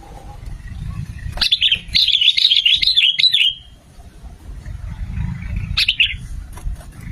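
Sooty-headed bulbul singing: a quick, chattering phrase of bubbly notes lasting about two seconds, then a short single call a couple of seconds later, over a low background rumble.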